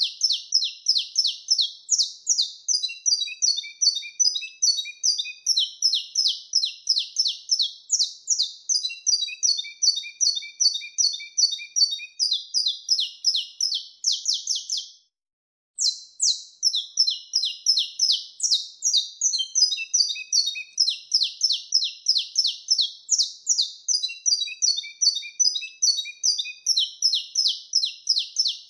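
Saffron finch (canário-da-terra) singing its 'mateiro' song: fast, high-pitched chirps and trills delivered phrase after phrase, with a short silence about halfway through.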